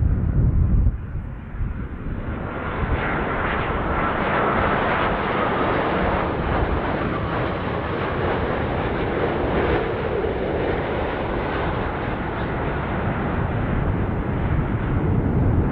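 Boeing 787-9 Dreamliner's jet engines on final approach: a steady rushing jet noise that builds over the first few seconds and then holds as the airliner comes in to land.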